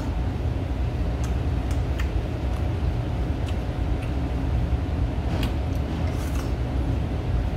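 Steady low rumble of room background noise, with a few faint clicks of metal tongs against a ceramic bowl and a brief sound of eating near the end.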